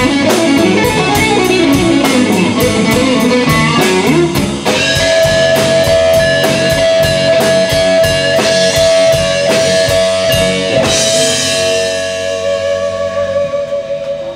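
Live blues-rock band: electric guitar playing a busy lead line over bass guitar and drum kit. About four and a half seconds in, the guitar holds one long sustained note while the drums keep a steady beat. A cymbal wash comes near the end, and the level eases off.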